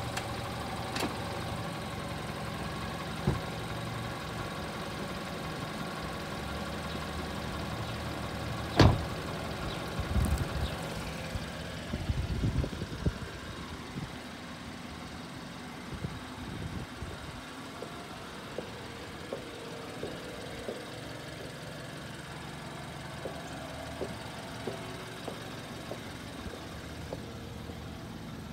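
2015 BMW 228i's turbocharged 2.0-litre four-cylinder engine idling steadily after a cold start. A single sharp knock comes about nine seconds in, followed by a cluster of lighter knocks and clicks a few seconds later.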